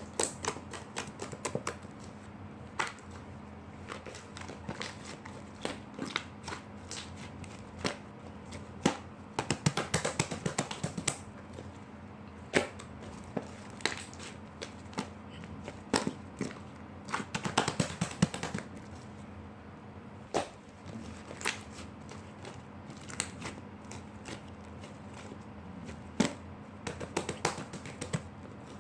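Slime being squeezed and pressed by hand, making irregular sticky clicks and pops, with dense flurries about ten and eighteen seconds in. A faint steady hum runs underneath.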